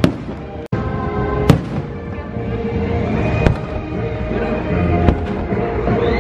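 Aerial fireworks bursting: about five sharp bangs spread across a few seconds, over the show's soundtrack music played through loudspeakers. The sound cuts out for an instant less than a second in.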